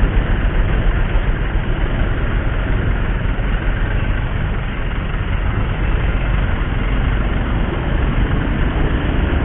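Motorcycle riding in traffic: the engine and road noise run as a steady rumble.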